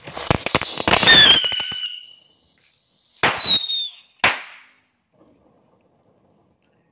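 Small firecrackers going off: a rapid string of sharp cracks with whistles falling in pitch for about two seconds, then a loud whistling burst a little after three seconds in and one last crack about a second later, after which it goes quiet.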